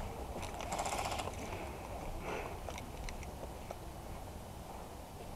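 A player's footsteps on dry dirt and gear rustling while moving on foot, over a low rumble of wind on the microphone. A short rattling burst comes about a second in.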